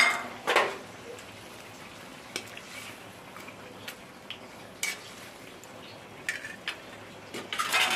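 Metal spatula knocking and scraping in a metal kadai as fried rohu fish head pieces are stirred into simmering curry gravy, over a low steady sizzle. A clatter about half a second in, scattered light knocks, then a busier run of scraping near the end.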